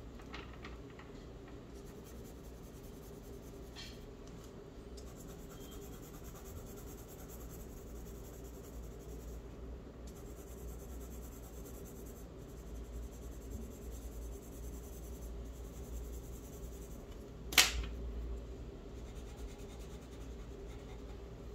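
Faint scratching of a charcoal pencil shading on paper over a steady low hum, with one sharp click about seventeen seconds in.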